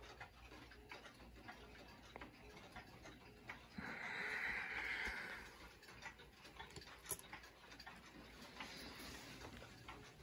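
Clock ticking faintly, with handling noise; a short rubbing hiss about four seconds in lasts about a second and a half.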